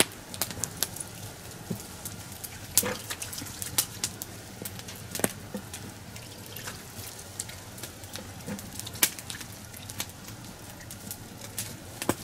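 Wood campfire crackling, with irregular sharp pops and snaps from the burning logs and a few louder cracks.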